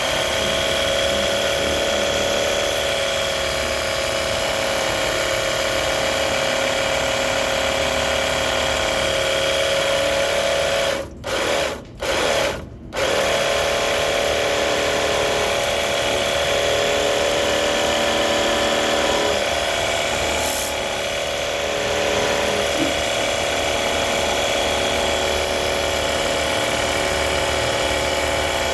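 A small electric motor running steadily with a high whine over a constant hiss, briefly cutting out three times near the middle.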